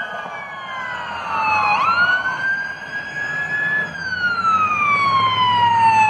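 Police car siren wailing: the pitch falls, sweeps back up about two seconds in, then slides slowly down again, over a low rumble of road traffic.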